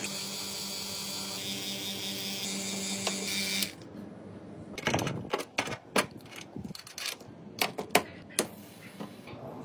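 A steady hum with a low tone cuts off abruptly after about three and a half seconds. It is followed by a run of sharp, irregular clicks and taps, several a second.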